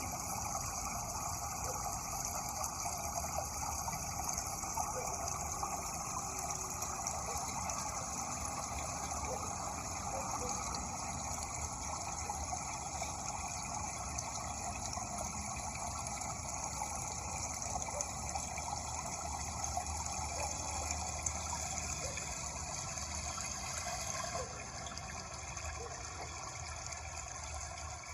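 Steady rushing of running water, an even, continuous wash of sound that drops slightly in level about 24 seconds in.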